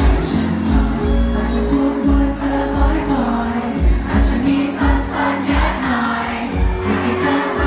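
Live pop singing: a male singer sings into a handheld microphone over a backing track with a steady beat.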